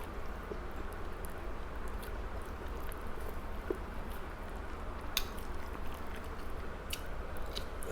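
A person chewing juicy grilled chicken close to the microphone, with scattered short wet mouth clicks over a steady low hum.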